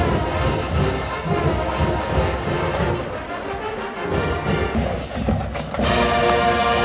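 Music with a steady beat and brass; a long held chord comes in near the end.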